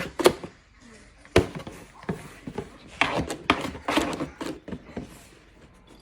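Knocks, taps and scraping on a hard wooden surface, in a small room: single sharp knocks near the start and a busier run of them about three to four and a half seconds in.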